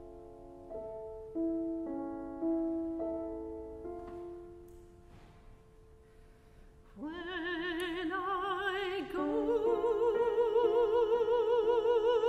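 Grand piano playing slow, separate chords that ring and die away, then a classically trained soprano voice enters about seven seconds in, singing with a wide vibrato over soft piano accompaniment.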